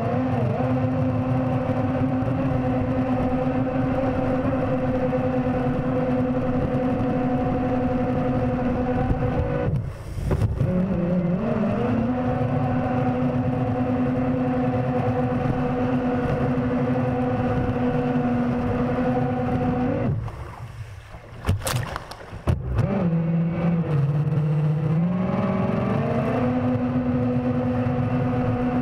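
Electric jet drive of a DIY jet kayak, its motors spinning the impeller with a steady whine over rushing water. The pitch glides up as it spins up. It dips briefly about ten seconds in, then cuts out for about two seconds a little after twenty seconds, with a few clicks, before spinning up again.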